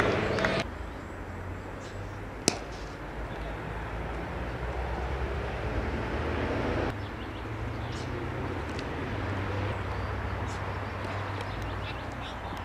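A cricket bat striking the ball once, a single sharp knock about two and a half seconds in, over steady open-air ambience with a low hum.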